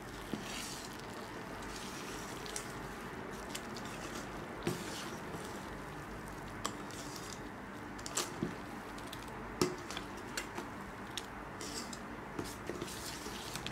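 Steel ladle stirring thick fermented rice batter in a stainless steel bowl: a steady wet squishing swish, with light knocks of the ladle against the bowl every second or two.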